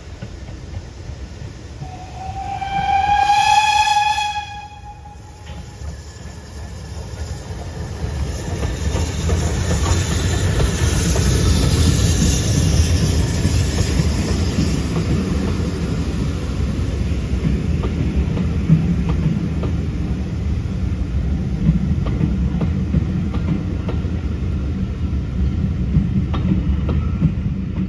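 Steam locomotive whistle sounding once for about two seconds, rising slightly in pitch as it starts. The locomotive and its coaches then pass close by in a loud, steady rumble, with clicks of wheels over rail joints.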